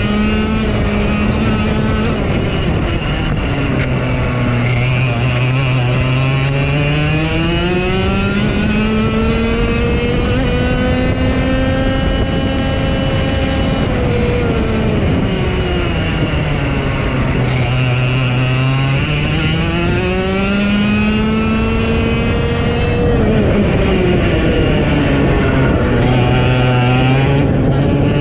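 Race car engine running at racing speed around an oval, its pitch climbing slowly for several seconds and then dropping off, several times over, with other engines fainter behind it.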